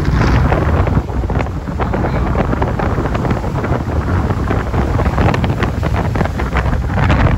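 Strong tropical-storm wind buffeting the microphone in a heavy, crackling rumble, with surf breaking on the beach behind it.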